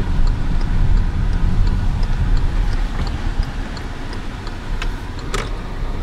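Car interior while driving slowly: a steady low rumble of engine and tyres, with the turn-signal indicator ticking about twice a second as the car makes a right turn. A couple of sharp knocks come near the end.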